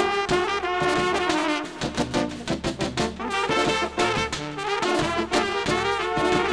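Brass band playing lively dance music, trumpets carrying the melody over a strong, regular beat.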